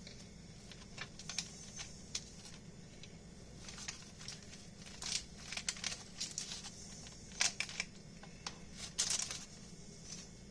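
Light kitchen handling noises: scattered soft crinkles and scrapes, a few at a time, from buttering fish fillets on a parchment-lined sheet pan, over a faint steady low hum.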